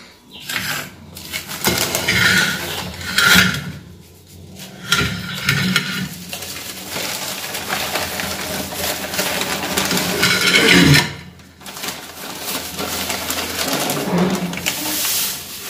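Newspaper rustling and crinkling as it is handled and folded to tip sieved powder into a steel frying pan, with scattered clinks and knocks of metal cookware on the counter.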